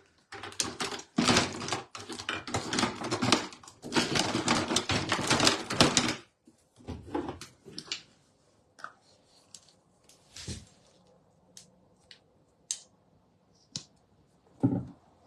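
Rapid clattering and rustling of small objects being handled for about six seconds, then a few scattered separate taps and knocks.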